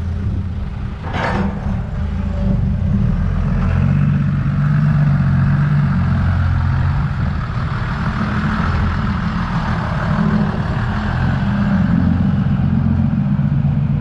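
Heavy diesel engine running steadily, with a short hiss about a second in; from about four seconds on the engine works harder and its sound fills out.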